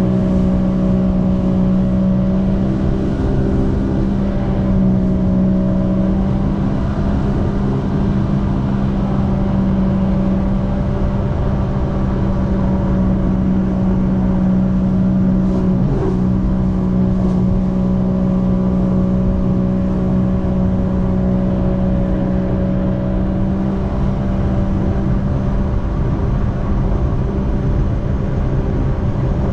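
Jetski engine running at a steady high speed, its drone holding an even pitch, over rushing wind and water noise. A brief sharp knock about halfway through.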